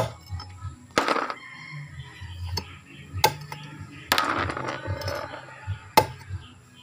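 Several sharp knocks, with two short bursts of clatter about a second in and past the middle, from freshwater snails being chopped and handled for cooking.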